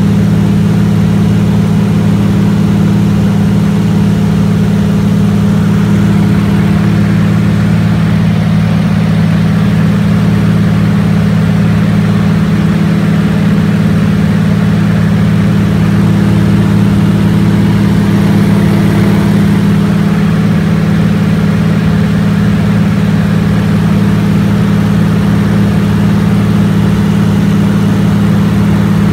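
De Havilland Beaver floatplane's engine and propeller running steadily in flight, a loud, even low drone heard from inside the cockpit.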